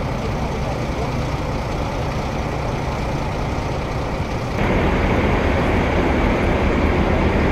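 Tow truck engines running with a steady low hum. About four and a half seconds in, the sound cuts to a louder, deeper engine rumble as a line of tow trucks drives up the street toward the microphone.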